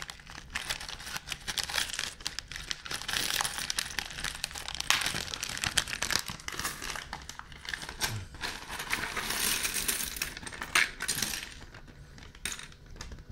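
Loose plastic Blocki building bricks rattling and clicking against each other as a hand sifts through a pile of them in a cardboard box. The rattling is quieter near the end.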